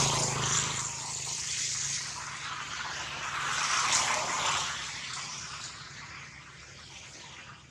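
Rain falling on tree leaves: a steady hiss that swells again about four seconds in, then fades toward the end.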